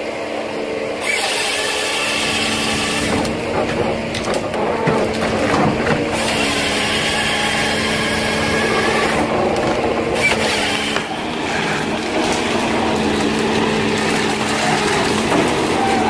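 Ponsse forestry harvester running with a steady engine hum, while its harvester head's chain saw cuts through a tree trunk at the base in stretches of louder cutting noise.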